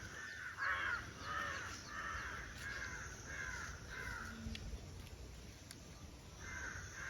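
Crows cawing over and over, about two caws a second, with a short pause before more caws near the end.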